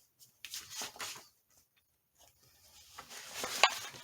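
Sheets of paper rustling as they are handled, in two short spells with a near-quiet pause between, and a sharp tap near the end.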